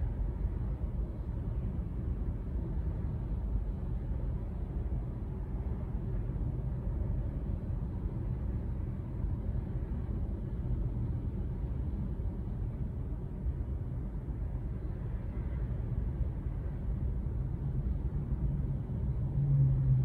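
Steady low rumble of idling and creeping traffic heard from inside a car's cabin, with a low engine hum that grows louder near the end.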